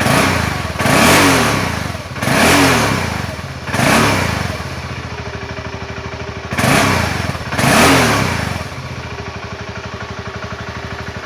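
BMW 650 motorcycle engine through its stock muffler, blipped six times so the revs rise and fall, then settling to a steady idle about nine seconds in.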